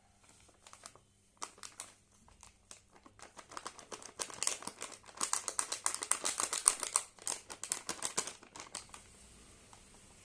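Plastic packet crinkling and crackling as it is handled, with a dense run of rapid crackles in the middle that thins out near the end.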